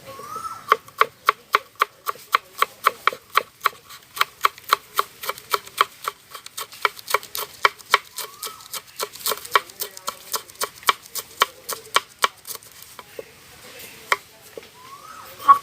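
Knife chopping on a cutting board in a steady rhythm, about three strokes a second, thinning to a few scattered strikes near the end.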